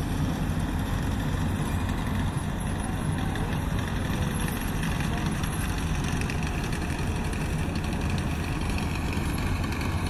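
Steady drone of a diesel farm-machinery engine running at constant speed, a low, even hum with no breaks or changes.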